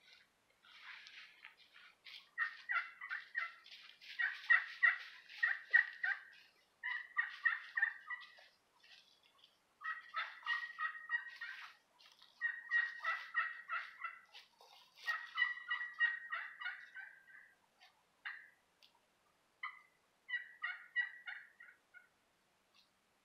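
Kaiser Kalls copper-and-glass pot call in a cocobolo pot, played with a striker: several runs of quick turkey-like yelps with short pauses between them. Near the end come a couple of single sharp notes and one last short run.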